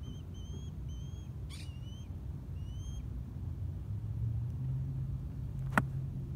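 A golf club striking the ball and turf in a single sharp click near the end. Before it a bird calls with a run of short rising chirps in the first half, over a low steady rumble.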